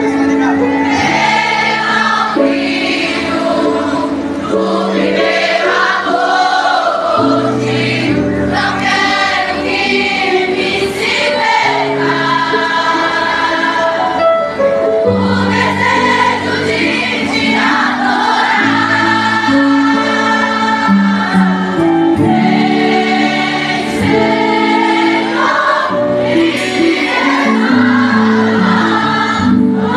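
Live gospel music over a PA: many voices singing together, as a crowd singing along with a male singer, over acoustic guitar and a steady bass line.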